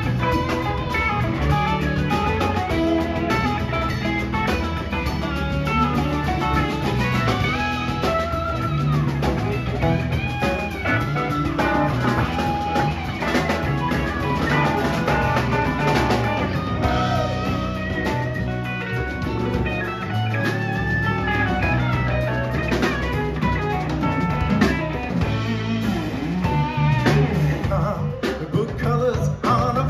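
Live rock band playing an instrumental jam: electric guitars, bass guitar, drum kit and djembe, with a harmonica playing lead lines over the top.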